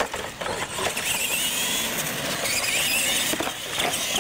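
Radio-controlled monster trucks running flat out, their motors and gears whining high, the pitch wavering up and down with the throttle, with a few knocks along the way.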